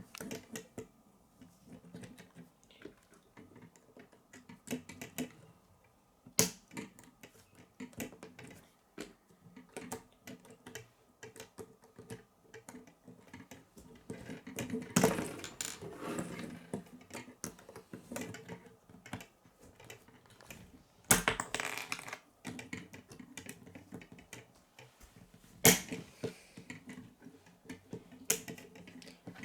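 K'nex plastic pieces being handled and snapped together, irregular clicks and clatters, with a few louder clacks.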